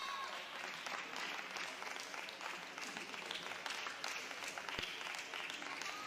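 Audience applauding, many hands clapping steadily after a point in a table tennis match, with a single low thump about five seconds in.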